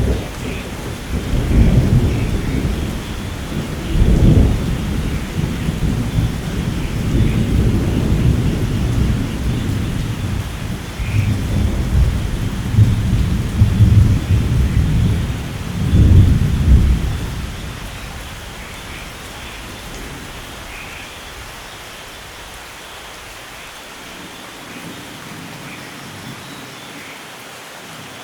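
Thunder rolling in a long low rumble, with several louder surges over about seventeen seconds, over steady rain. The thunder then dies away, leaving the rain alone at a lower level.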